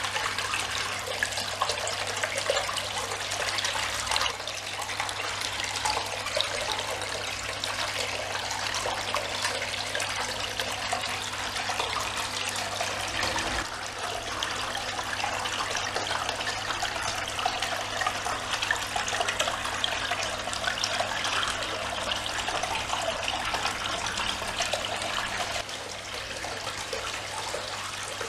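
Water of a Geyser Peak garden fountain bubbling up from its jet and splashing down over the faux-rock tiers in a steady splash, with a faint steady hum underneath.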